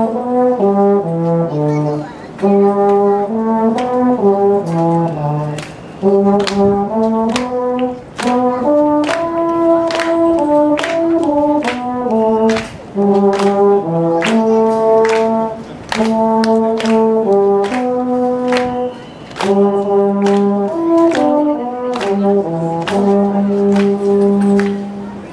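Solo euphonium playing a melody of held and stepping notes in the low-middle range, phrase after phrase with short breaths between them, showing the instrument's tone.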